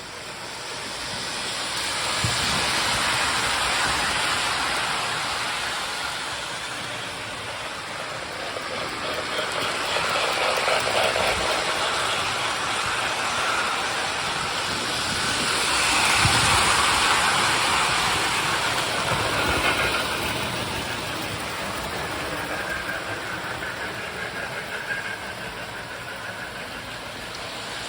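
Lionel and Marx toy electric trains running around a layout: wheels rumbling on the track and the Sound of Steam and Sound of Power units hissing out steam-chuff noise. The sound grows louder and fainter several times as the engines pass.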